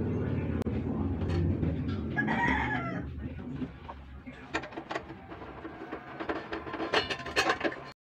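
A rooster crows once about two seconds in, over a low steady rumble. After that come light metal clicks and clinks as the gas stove's pan support and burner parts are handled, loudest near the end.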